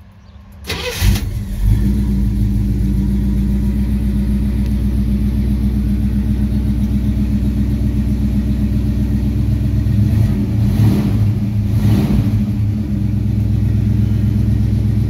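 Rebuilt International Harvester 304 V8 cranking and catching about a second in, then running steadily at idle, heard from inside the cab.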